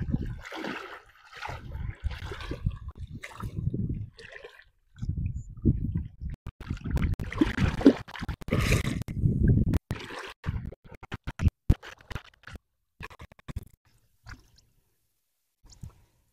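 Shallow water sloshing and splashing in irregular bursts as a fishing net is set by hand. It thins to a few scattered small clicks and goes almost quiet near the end.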